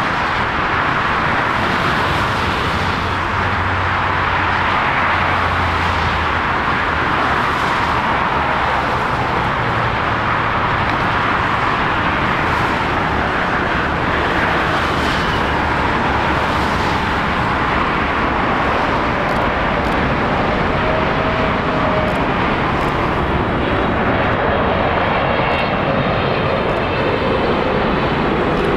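Boeing 777F freighter's GE90 turbofan engines on final approach: a steady, loud jet rush, with a faint whine showing through in the last few seconds as the aircraft comes closer.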